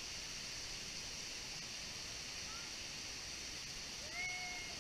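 Steady rushing of a waterfall and creek water. About four seconds in, a person gives one long drawn-out call that rises, holds, then slides down in pitch.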